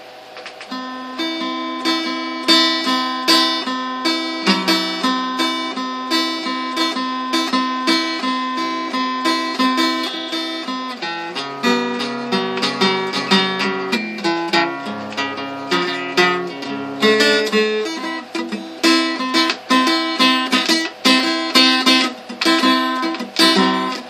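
Acoustic guitar played solo in a repeating plucked pattern. About halfway through the part moves down to lower notes for several seconds, then returns to the opening pattern.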